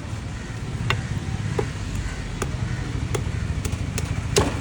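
A knife or cleaver chopping fish on a cutting board: about seven sharp strokes at uneven intervals, the last one the loudest, over a steady low background rumble.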